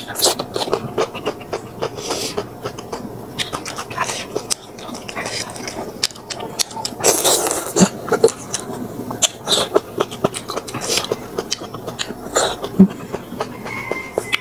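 A person eating rice noodles and fish close to the microphone: chewing and lip-smacking with many short, sharp mouth clicks, and a longer rushing sound about seven seconds in.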